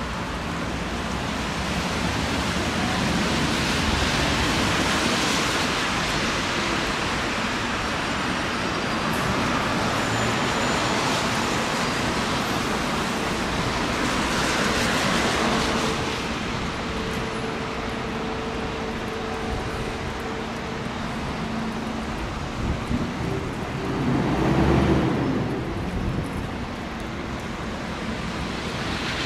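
Road traffic noise: a steady rush of vehicles and tyres passing on a city street, with a brief louder swell about 25 seconds in.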